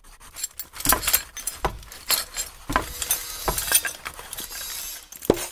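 An irregular series of sharp clinks and knocks, with a stretch of hiss in the middle and one louder, lower knock near the end.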